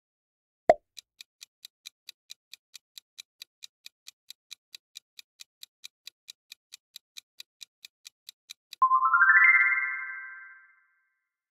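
Quiz sound effects: a short pop, then a countdown-timer tick sounding steadily about four times a second for some eight seconds. Then a bright chime of quick notes stepping upward rings out and fades: the time-up, answer-reveal sound.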